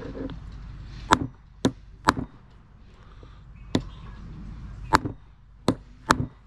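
A ball-peen hammer taps a new grease seal into its bore in a motorcycle's aluminium rear-wheel hub, driving it home over a freshly fitted bearing: seven sharp knocks at uneven intervals.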